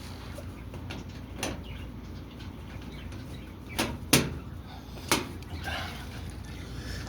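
A few sharp knocks and clacks from parts of a top-load washing machine being handled, about four in all, the loudest two close together about four seconds in.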